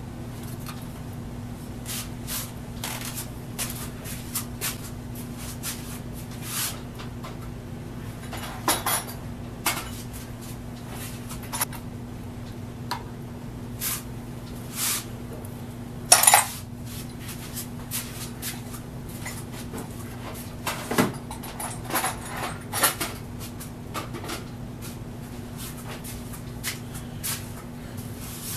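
Scattered clicks, knocks and metal clinks of small tools and parts being handled, with the loudest knock about sixteen seconds in, over a steady low hum.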